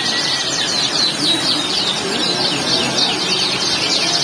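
Canaries singing in dense, continuous rapid trills of high chirping notes.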